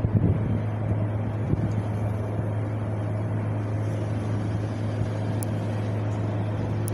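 Wind blowing steadily as a low rumble, with a few brief gusts buffeting the microphone near the start.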